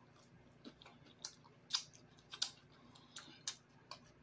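Close-up chewing of cheese-covered nacho tortilla chips: about eight short, crisp crunches, irregularly spaced.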